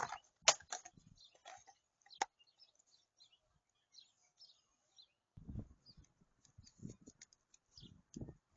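Faint clicks and light knocks of the oil filter housing and cartridge being handled, sharpest in the first two seconds and softer thumps later, with birds chirping faintly in the background.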